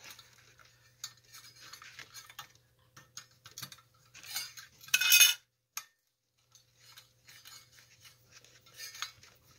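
Light clinks and scrapes of metal as the nickel-plated tubular arm of a swing arm desk lamp and its cord are handled while the wire is worked through a bend, with one louder metallic scrape about five seconds in.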